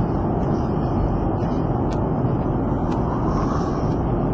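Steady cabin noise of an airliner in flight: an even, unbroken rush of engine and airflow noise, strongest in the low range.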